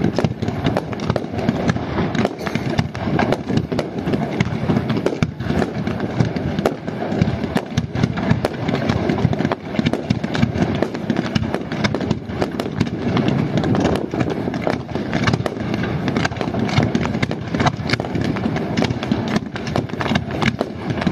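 Fireworks display: a continuous, dense barrage of bangs and crackling, many reports a second with no let-up.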